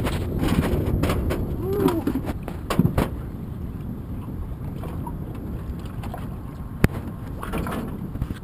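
Wind and water noise around a small aluminium fishing boat on choppy water, with a few sharp knocks, the sharpest about seven seconds in.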